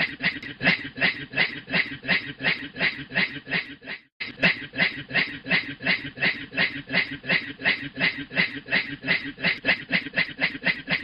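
A man's mouth imitation of a steam train chugging: even, breathy puffs about four a second, with a brief break about four seconds in.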